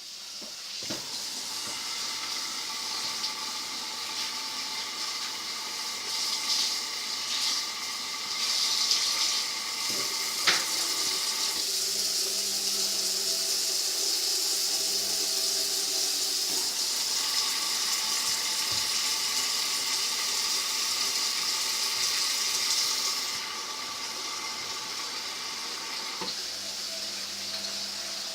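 Indesit washing machine filling with water at the start of a cycle: a steady rush of water into the drum with a steady hum underneath. The rush falls off sharply a few seconds before the end.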